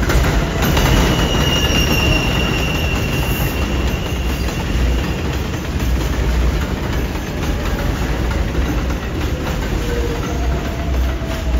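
R142A subway trains on an elevated steel structure: a steady rumble and clatter of wheels on rail as one train runs past on the adjacent track while another pulls in. A high wheel squeal rings for the first few seconds, and a lower whine rises near the end.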